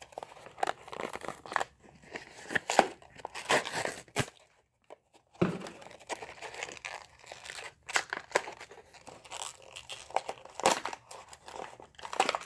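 A Hot Wheels blister pack being torn open by hand: plastic blister crinkling and cardboard card tearing in irregular crackly bursts, with a break of about a second a little over a third of the way in. The car is stubborn to come out of the blister.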